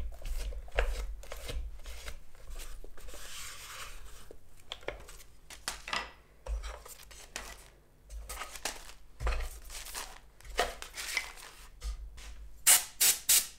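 Wooden CD holder being handled and taken apart on a wooden tabletop. Paper sleeves rub and rustle, and wooden pieces make short knocks and clicks. Three sharp knocks come near the end.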